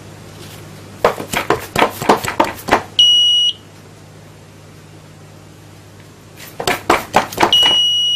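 A quick run of about eight sharp, loud impacts, then the installation's Arduino-driven buzzer gives a high steady beep for about half a second: its alarm that the sound reaching its microphone has passed the noise limit. The same happens again, with the buzzer starting near the end, over a low steady hum.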